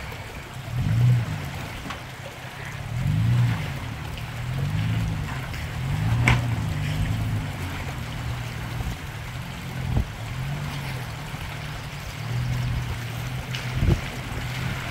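Toyota FJ Cruiser's V6 engine crawling in low gear, its revs rising and falling again and again as it climbs over rocks and roots, with a few sharp knocks of tyres on stone and a faint trickle of creek water.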